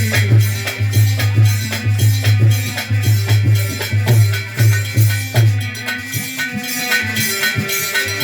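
Instrumental interlude of folk music: steady drum and shaker-like percussion over a pitched melody and a sustained low bass note, which drops out about seven seconds in.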